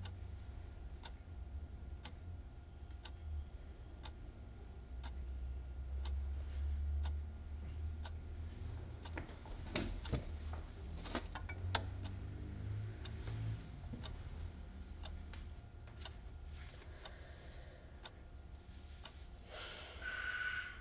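A clock ticking steadily about once a second over a low room hum, with a few irregular soft clicks and rustles around halfway. Just before the end there is a brief brighter sound with a few high ringing tones.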